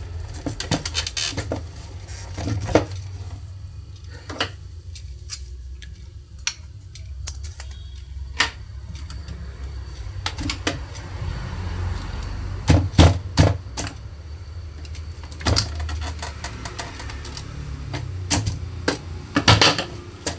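Hands working the cable connectors off the terminals of an APC Back-UPS 600's battery and shifting the battery in its plastic case: scattered sharp clicks, scrapes and knocks, the loudest a little past halfway and just before the end, over a steady low hum.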